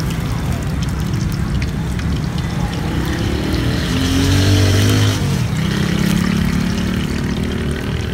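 Street traffic rumbling, with a motor vehicle passing close: its engine note swells about four seconds in and falls away a second later. Under it, oil sizzles steadily around sticky-rice-wrapped chicken drumsticks deep-frying in a wok.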